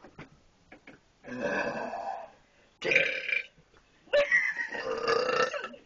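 A person burping deliberately three times in a row, the last burp the longest.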